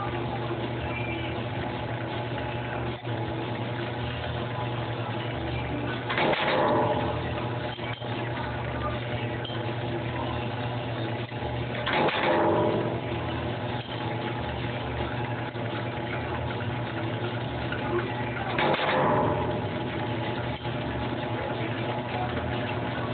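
A metal stamping press running with a steady motor hum; three times, about six seconds apart, it cycles with a louder surge about a second long as it stamps the shape of a copper spoon lure.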